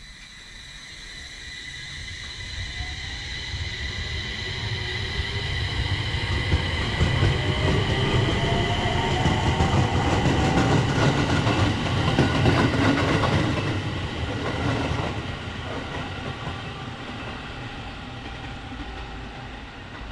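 Aoimori Railway 701 series electric train pulling away from the platform and passing close by. Its motor whine rises in pitch as it gathers speed, with wheels clattering on the rails; the sound grows to a peak about halfway through, then fades.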